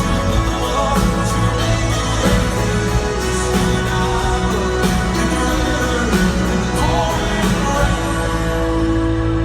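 Live indie folk-rock band playing through a concert PA: drums, guitars and sustained chords with singing. The drums drop out near the end, leaving a held chord ringing.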